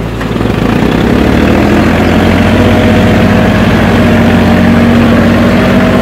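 Engine of earthmoving machinery running steadily as it digs in dirt, getting louder over the first second and then holding steady.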